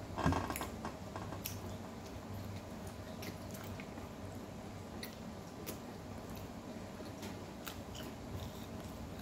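Close-up chewing of cold, tough Arabic flatbread (khubz), with a louder sound of the bread being torn just after the start and scattered soft mouth clicks.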